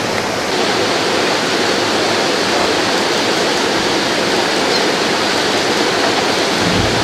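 Rushing white water pouring steadily through a river weir chute, a constant, even noise.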